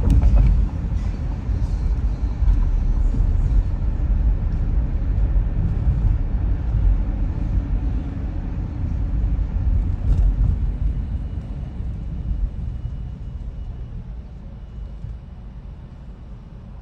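A car driving slowly on a city street: a steady low rumble of tyres and engine that dies down over the last few seconds as the car slows to a stop.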